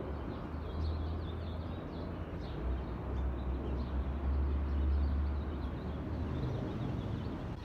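Outdoor city ambience: a steady low rumble of traffic, with faint bird chirps over it.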